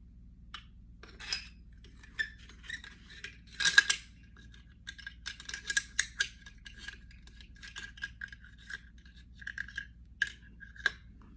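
AR-15 bolt and bolt carrier being handled and fitted during reassembly: a run of small metal clicks and scrapes with a thin squeak of metal rubbing on metal, and a sharper clack about four seconds in.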